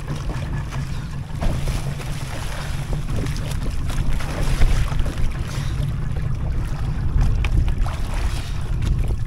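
Wind buffeting the microphone as a steady low rumble, over the wash of sea water, with a few faint knocks.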